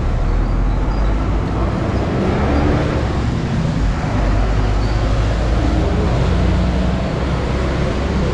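City street traffic: motorbikes and cars passing on a busy road, a steady low engine rumble with tyre noise.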